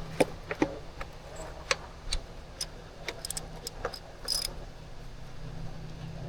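Light metallic clicks and clinks of hand tools and engine parts being handled, at irregular moments, with a sharper clink about four seconds in, over a steady low hum.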